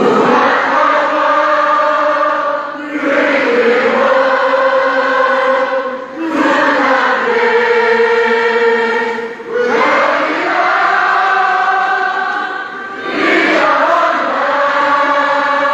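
A large group of students singing together as a choir, held sung notes in phrases of about three seconds each, with a brief breath between phrases.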